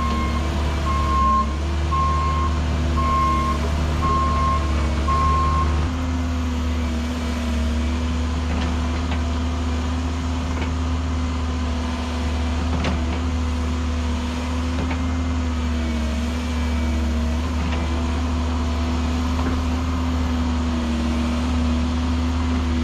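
Diesel construction machine's engine running steadily under work, with its backup alarm beeping about once a second for the first six seconds, then stopping while the engine keeps running.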